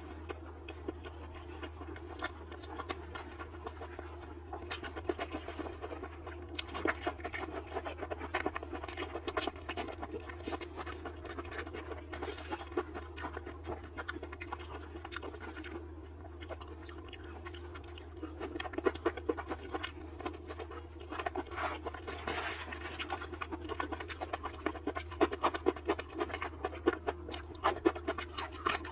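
Close-miked chewing of spicy braised skewered food, with wet smacking and many small crunchy clicks in an irregular stream, growing busier in the second half. A steady low hum runs beneath.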